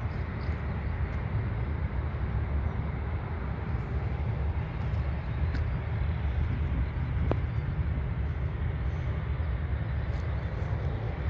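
Steady low rumble of a Ryanair Boeing 737's jet engines as the airliner moves along the runway, holding an even level without building up.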